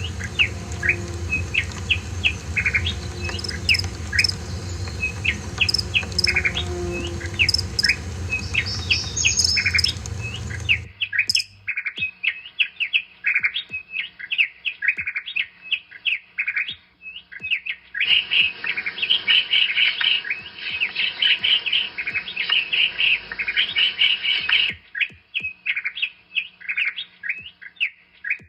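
Small birds chirping in quick, short calls. A low steady hum lies underneath until the background changes abruptly about eleven seconds in. From about eighteen to twenty-five seconds a dense burst of overlapping chirping joins in.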